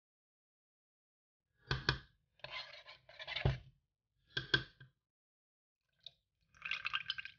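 Metal spoon scraping and clinking against a stainless steel pot while stirring thick pearl millet batter, in four short bursts with pauses between. Near the end water is poured into the batter as the spoon keeps stirring.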